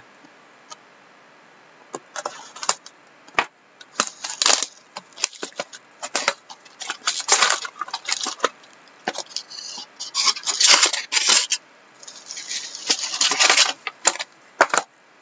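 Crinkling and rustling of plastic shrink wrap, cardboard and foil card packs as a sealed hockey card box is opened and its packs handled, in quick bursts with clicks. It starts about two seconds in and is busiest around ten and thirteen seconds in.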